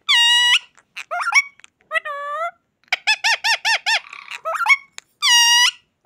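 Rose-ringed (Indian ringneck) parakeet calling: a loud, harsh, high-pitched squawk at the start and another about five seconds in, with shorter chattering calls between them, including a quick run of about eight rapid calls around three seconds in.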